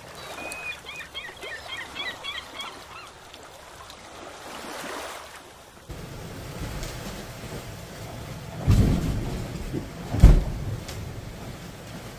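Sea noise heard from inside a Lagoon 421 catamaran's cabin at night in a storm: a steady rush of water and wind, with two heavy thuds about a second and a half apart as waves slam against the hull. It opens with a short jingle of chirping tones.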